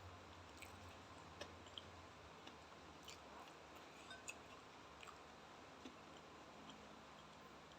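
Faint, quiet chewing: soft scattered mouth clicks and wet smacks over a low steady hiss.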